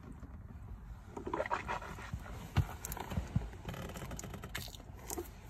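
Faint breathing of a man, heavy breaths around a second and a half in, with a few small clicks and knocks.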